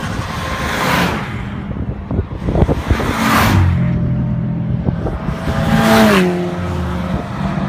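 Tuned VW Golf MKV GTI, its turbocharged four-cylinder running APR Stage 3+ with a full APR exhaust, driving hard past on the track. The sound swells with rushing noise several times, loudest about six seconds in, where the engine note drops in pitch as the car goes by.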